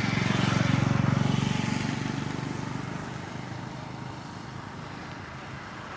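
Airbus A319's two CFM56-5B turbofan jet engines at takeoff thrust as the airliner rolls away down the runway: a deep rumble with a jet hiss above it, loudest about a second in, then fading steadily as it recedes.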